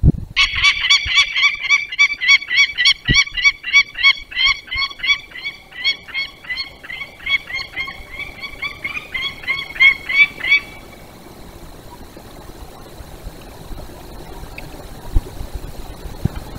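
Peregrine falcon alarm call: a fast run of repeated sharp notes, about four a second, that stops about ten seconds in.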